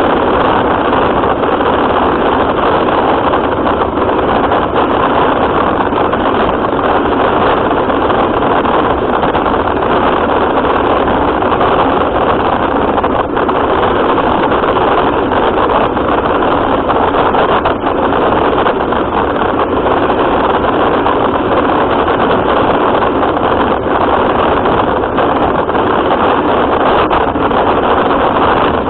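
A radio-controlled car running: a steady, loud drive noise heard from a camera mounted on the car.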